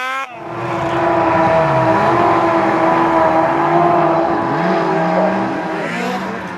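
Snowmobile engines at high revs: one holds a steady high note while a lower engine note rises and falls as the throttle works. The sound starts abruptly at a cut and eases off near the end.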